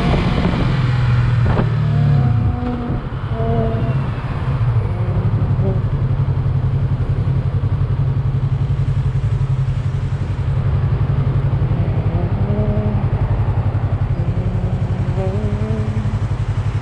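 Yamaha YZF-R3's parallel-twin engine easing off and slowing in the first couple of seconds, then idling steadily with an even, rapid pulse.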